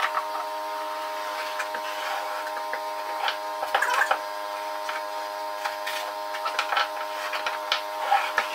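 Fast-forwarded background sound of a site generator, its hum raised to a steady, higher multi-tone whine, with quick scattered clicks and taps from hand work throughout.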